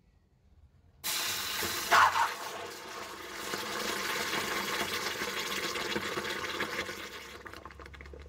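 Hot copper ingot quenched in a stainless steel bowl of water: a sudden loud hiss as it goes in about a second in, a brief louder burst a second later, then steady boiling sizzle that fades near the end.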